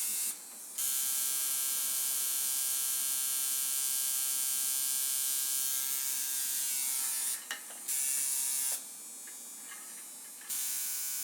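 Electric tattoo machine buzzing steadily, switched off and on three times: a short pause just after the start, a very brief one past the middle, and a pause of about a second and a half near the end.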